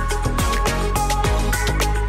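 Background music with a steady electronic drum beat, about two beats a second, under held synth notes.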